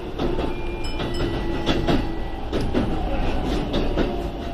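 Keikyu 1000 series electric train running over pointwork, its wheels knocking over the switch and crossing joints at irregular intervals above a steady rolling rumble. It is heard from inside the front of the train.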